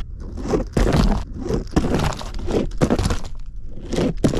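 Die-cast toy monster trucks knocking and clattering against cardboard and plastic track pieces: a run of irregular short thuds and cracks, a few a second.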